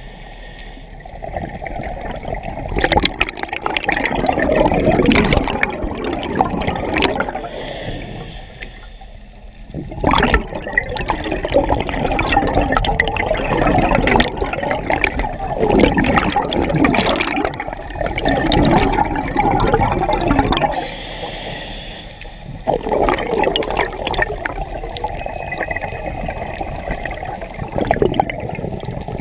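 Bubbles from a scuba diver's regulator exhaust gurgling past the mask-mounted camera as the diver breathes out. The bubbling comes in long stretches with two short breaks, about a third and two-thirds of the way through.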